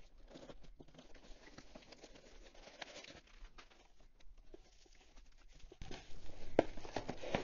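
Cardboard shipping box opened by hand: the flaps are folded back with quiet rustling, light scrapes and small taps. About six seconds in the handling gets louder, with a few sharp clicks, as the pen set's plastic package is picked up inside the box.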